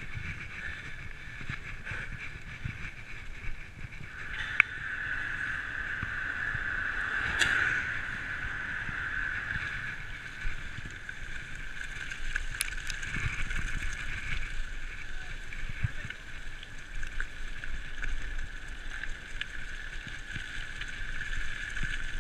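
A mountain bike ridden over a dirt and leaf-covered forest trail, heard from a handlebar camera: steady rumble of the tyres and frame with wind on the microphone, a continuous high-pitched whine, and a few sharp clicks as the bike jolts over bumps.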